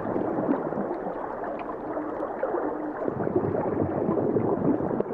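Water gurgling and bubbling, a steady churning wash with a few faint clicks.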